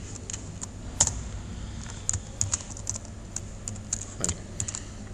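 Computer keyboard being typed on in short, irregular runs of key clicks, with one louder keystroke about a second in.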